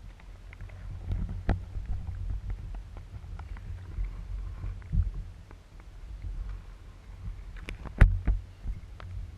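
Muffled low rumble of water moving against a GoPro's sealed housing underwater, with scattered sharp clicks and knocks; the loudest knocks come about eight seconds in.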